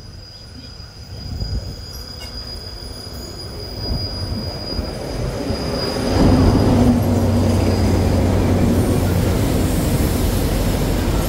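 Diesel locomotive hauling a passenger train into the station: a rumble grows louder, and about six seconds in the locomotive's engine drone comes in loud as it draws alongside. The carriages then roll past.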